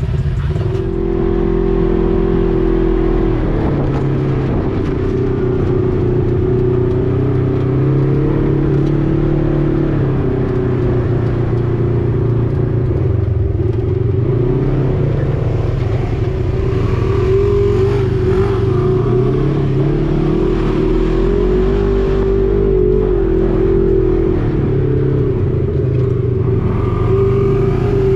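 Side-by-side UTV engine running and revving, its pitch rising and falling again and again.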